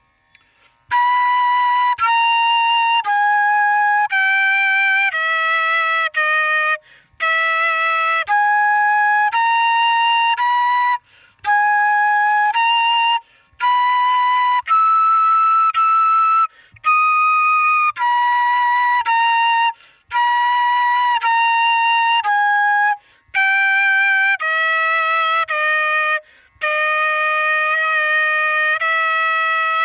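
Bamboo transverse flute playing a Carnatic geetham in raga Malahari, one held note per beat, the phrases stepping down in pitch. There are short breath breaks every few seconds.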